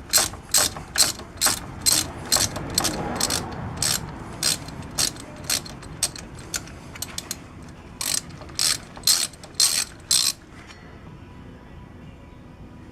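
Ratchet wrench clicking in short strokes, about two clicks a second, backing out a 3/16 Allen head bolt; the clicking stops about ten seconds in.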